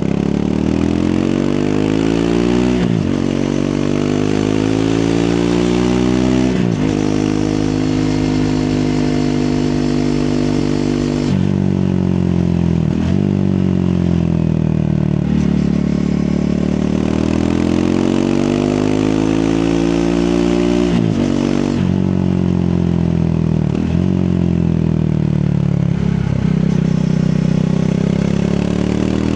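Triumph Speed 400's 398 cc single-cylinder engine on the move, climbing in pitch through the gears with a short break at each shift, then easing off and picking up again several times.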